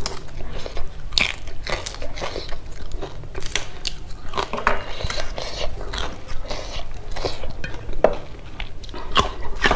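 Close-miked chewing and biting of fried fish and rice, with many short, crisp crunches throughout.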